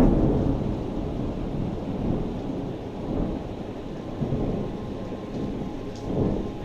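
Thunder: a sudden loud clap right at the start, then a long low rolling rumble, swelling again about six seconds in.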